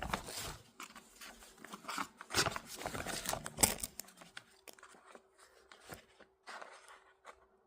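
Fabric being handled and fitted by hand, with irregular rustling, scraping and clicks; the loudest bursts come about two and a half and three and a half seconds in, then it grows sparser.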